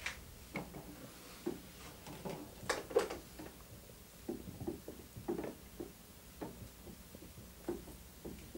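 Damp microfiber rag wiping the dusty painted metal arm of a vintage Singer sewing machine: irregular soft scuffing strokes with a few light knocks, the sharpest about three seconds in.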